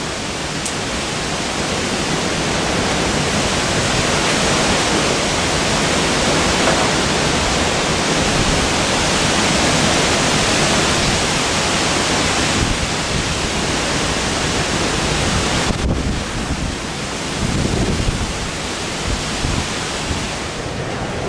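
Cyclone Nargis blowing at full force: a dense rush of storm wind and driving rain through palm trees, surging and easing in gusts.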